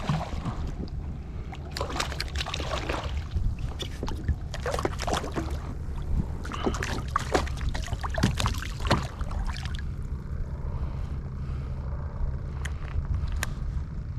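Water splashing and lapping against a kayak hull as it moves through choppy water, in irregular small splashes, over a steady low rumble of wind on the microphone.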